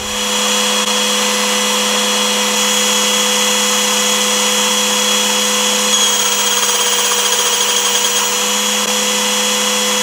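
Small belt sander running steadily, with a workpiece held against the moving belt: an even motor hum and hiss.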